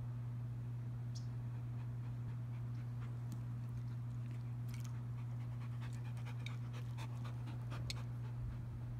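Entlebucher Mountain Dog panting, with a run of short slaps and splashes as it paws at water, picking up from about three seconds in. A steady low hum runs underneath throughout.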